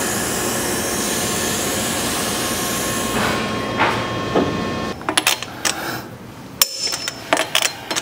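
Two-post vehicle lift letting a truck down: a steady hydraulic hiss for about five seconds that then fades. After it come scattered sharp metallic clinks and knocks.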